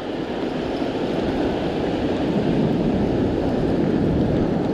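Steady rush of ocean surf breaking on the beach, mixed with wind rumble on the microphone.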